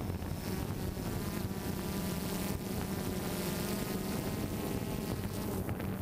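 DJI Phantom 2 Vision+ quadcopter's electric motors and propellers buzzing steadily in flight, picked up on the drone's own camera: an even hum with several held whining tones over a rough hiss.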